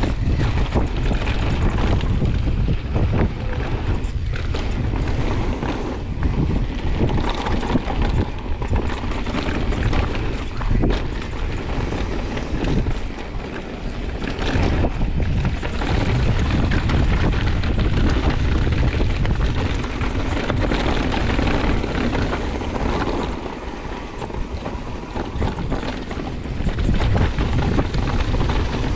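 Wind rushing over the microphone and mountain bike tyres rolling fast over loose dirt and stones on a downhill descent, with frequent knocks and rattles as the bike runs over bumps.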